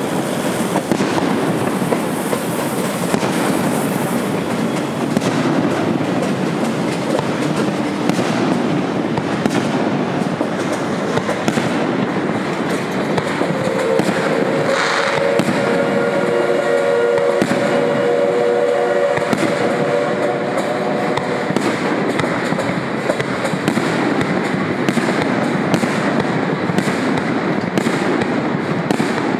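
A train whistle sounds steadily for about seven seconds around the middle, over a continuous noisy din full of sharp crackles.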